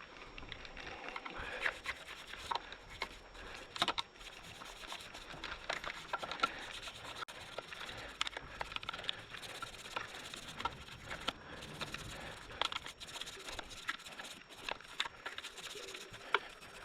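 A stiff-bristled Muc-Off brush scrubbing a degreaser-soaked motorcycle drive chain and rear sprocket, an irregular scratchy rubbing with many small clicks.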